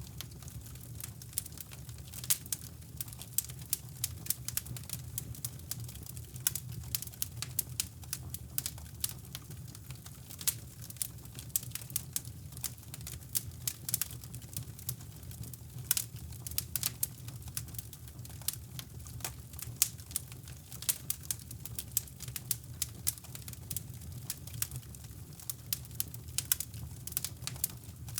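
Wood fire crackling in a fireplace: dense, irregular sharp pops and snaps. Under it runs a steady low brown-noise rush.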